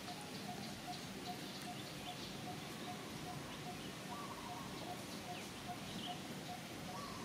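A bird's short, single note repeated steadily about two and a half times a second, over outdoor background with faint, scattered high chirps and squeaks.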